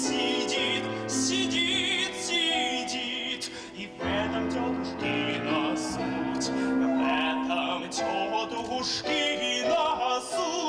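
Musical-theatre song sung in Russian: a voice singing with vibrato over an orchestral accompaniment with long held notes.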